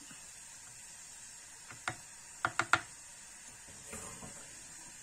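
A plastic slotted spoon knocking against a saucepan and a wooden cutting board as blanched green vegetable pieces are lifted out of the hot water. There is a quick run of sharp knocks two to three seconds in, then a softer clatter about four seconds in.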